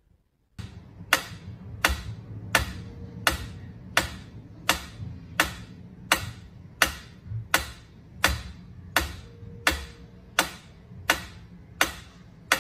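Mechanical pyramid-style metronome ticking steadily, its pendulum swinging, about three ticks every two seconds. The ticking starts about half a second in.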